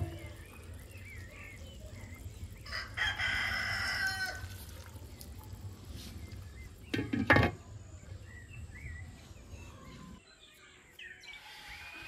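A rooster crows once, about three seconds in, a call of about two seconds, over small birds chirping. A couple of sharp knocks follow around seven seconds in.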